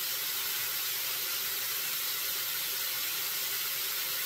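Elk meat sizzling steadily in a pan on high heat, left flat and unstirred to brown now that most of its liquid has cooked off.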